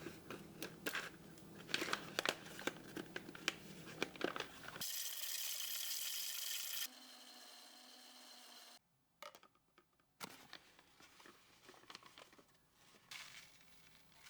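Packaging being handled, crinkling and tearing with many small clicks, then a steady hiss for about two seconds around the middle, then lighter scattered clicks.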